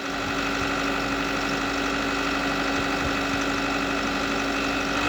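Mini excavator engine running steadily at a constant speed.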